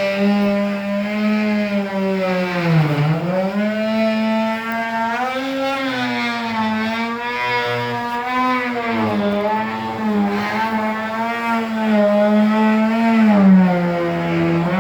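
A motor or engine running steadily nearby, its pitch sagging sharply about three seconds in and then recovering, with smaller slow rises and falls after that.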